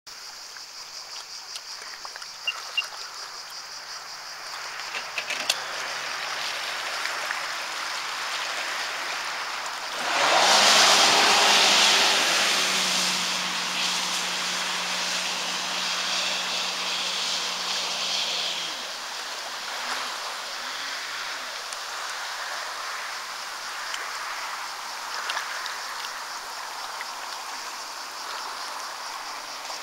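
A 250 hp Sea-Doo jet ski's engine runs quietly at first against small water sounds and a few clicks. About ten seconds in it accelerates hard with a loud rush of engine and spray. A steady engine note holds for several seconds, then the sound drops to a lower, steady rush as the craft moves away.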